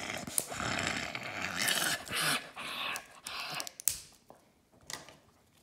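Hands gripping and twisting a plastic-wrapped toy capsule while trying to open it: plastic film rubbing and crinkling for the first couple of seconds, then a few sharp clicks as the grip shifts.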